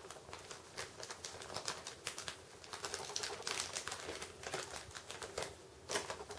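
Small clear plastic bag crinkling and rustling in the hands in quick, irregular crackles.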